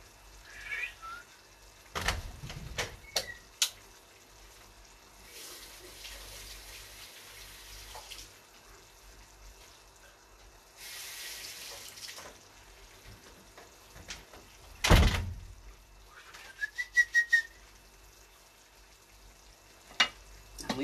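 Household sounds from an adjoining room: scattered knocks and clicks, a tap running briefly twice, and one loud thump about fifteen seconds in. There are also two short whistled notes, one near the start and a rising one later.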